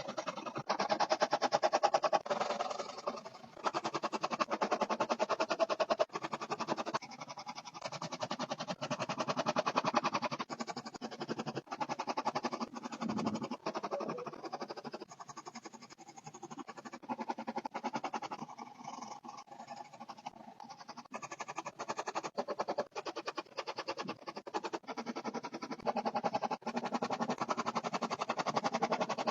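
Pencil scratching on paper in rapid back-and-forth shading strokes, easing off and picking up again several times.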